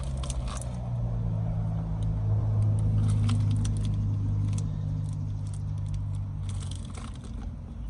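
Small metallic clicks and scrapes as a terminal screw is threaded by hand into a car amplifier's terminal to check it isn't stripped, over a steady low hum that fades near the end.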